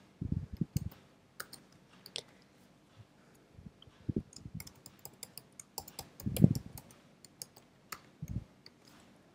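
Typing on a computer keyboard: quick, irregular key clicks, with a few heavier low thumps among them.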